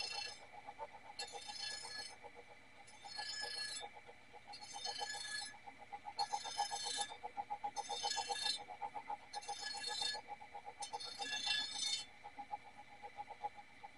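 Steel circular meat-slicer blade being sharpened by hand: a metallic scrape stroke along its edge about once every second and a quarter, nine strokes in all, then the strokes stop. A faint steady hum with a fast pulse runs underneath.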